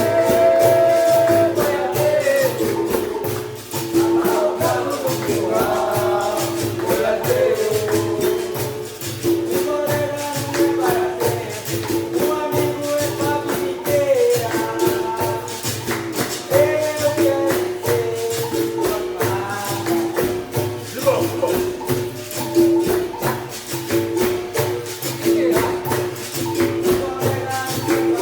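Capoeira music: a voice singing over a steady, even percussion rhythm of shakers and pandeiro jingles, with a repeated plucked-string note like a berimbau's.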